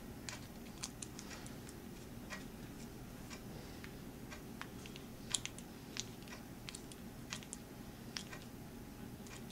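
Faint, irregular small clicks of a screwdriver turning a screw through the metal extruder lever arm into a stepper motor, the screw being driven tight against the compressed spring.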